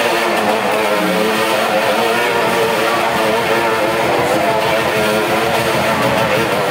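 Motorcycle engine running hard and steady at high revs as the bike rides around inside a steel-mesh globe of death.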